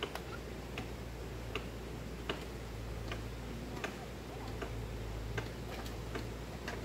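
Even, regular ticking, about one sharp tick every three-quarters of a second, over a steady low hum.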